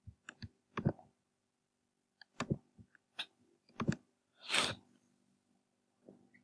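Quiet computer mouse clicks and small desk knocks, several spread over a few seconds, with a short hiss a little past halfway.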